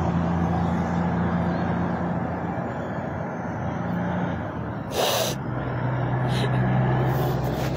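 A vehicle engine running with a steady low hum that drops in pitch about five seconds in. A short hiss comes at that moment, and two briefer hisses follow near the end.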